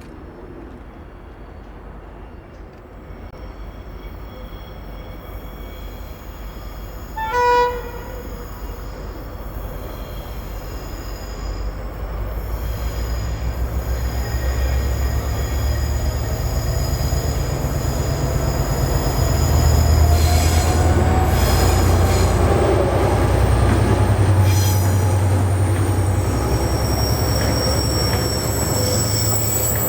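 GM 071 class diesel locomotive's EMD V12 two-stroke engine hauling a heavy materials train, its rumble growing steadily louder as it approaches. The locomotive horn gives one short blast about a quarter of the way in. High-pitched wheel squeal from the wagons runs through the second half.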